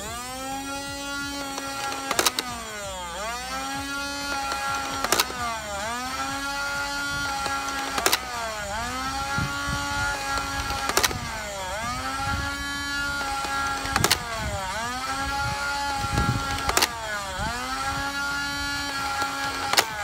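Buzzbee Alpha Auto 72 foam-dart blaster firing on full auto: a motor whine that rises in pitch as it winds, then a sharp snap as each dart fires, about one shot every three seconds. The blaster's slow rate of fire.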